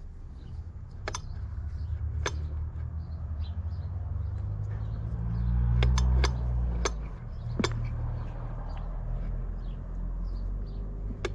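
Sharp clicks and taps of hands working on the starter, over a low rumble that swells about halfway through, with faint bird chirps.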